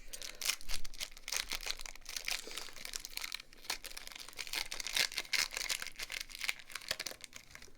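Crinkling and crackling of a foil Pokémon card booster-pack wrapper and trading cards being handled, an irregular run of crackles with louder bursts about a second in and about five seconds in.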